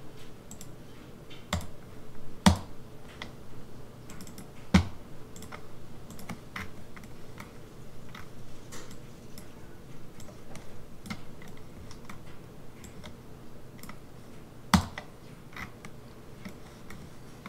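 Irregular clicking and tapping of a computer keyboard and mouse, with three sharper, louder clicks among the lighter taps.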